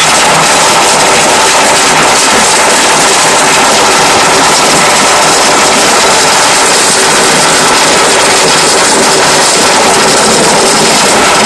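Motor-driven sugarcane juice crusher running: its ridged steel rollers and boxed gearing make a loud, steady mechanical drone with a few steady whining tones through it.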